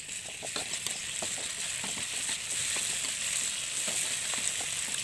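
Ground spice paste with galangal, kaffir lime leaves and lemongrass sizzling in oil in a wok as it is sautéed until fragrant, with steady hiss. A metal spatula scrapes and taps against the pan as it is stirred.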